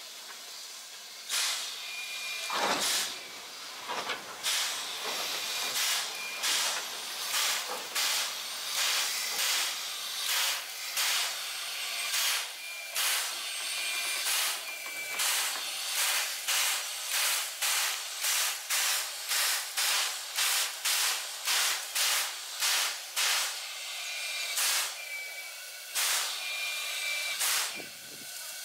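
JNR Class C11 steam locomotive standing in steam, letting off a steady hiss with a rhythmic run of steam puffs that quickens to about two a second, then thins out again near the end.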